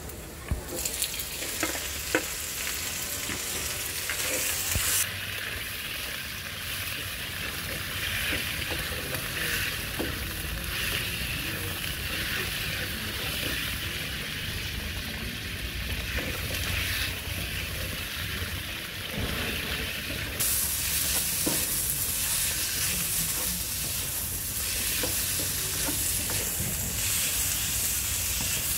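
Raw chicken pieces sizzling in hot oil in a wok while being stirred and turned with a spatula. There are a few sharp knocks near the start as the pieces are tipped in from the plate, and the sizzle grows brighter and louder about two thirds of the way through.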